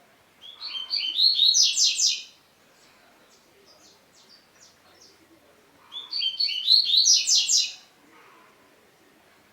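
Double-collared seedeater (coleiro) singing: two song phrases of about two seconds each, four seconds apart. Each is a fast run of sharp, high notes that grows louder towards its end, and a few soft short notes fall between the phrases.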